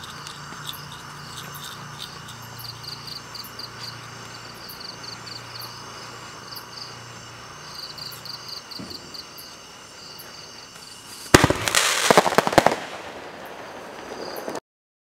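Crickets chirping in steady pulses over a faint low hum. About eleven seconds in, a Cosmic Fireworks Fire Devil mine fires: a loud burst with several sharp cracks, lasting about a second and a half.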